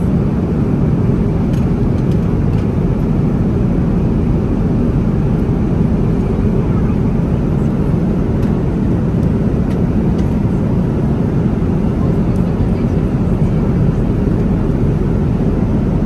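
Steady, loud rumble of a Boeing 777-200ER's jet engines and rushing air, heard from inside the passenger cabin.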